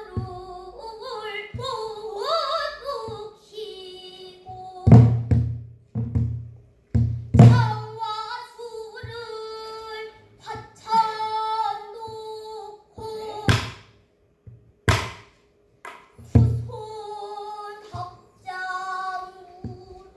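A child singing pansori solo with sliding, wavering pitch, accompanied by a buk barrel drum. The drum gives deep thumps on the drumhead a few times and sharp knocks on its wooden rim between the sung phrases.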